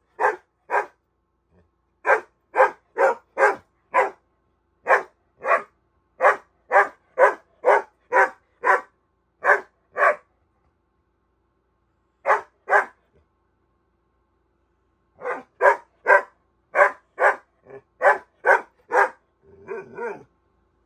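Bernese mountain dog puppy barking in runs of short, sharp barks, about two or three a second, broken by pauses of a second or two. Near the end the barks give way to a short, lower grumble.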